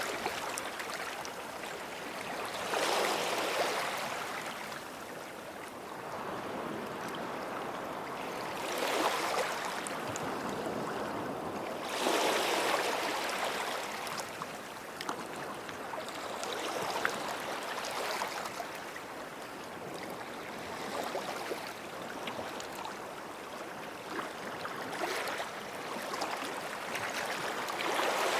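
Small waves washing onto a sandy beach. Each one surges up with a hiss and then eases off, every three to six seconds, over a steady wash of surf.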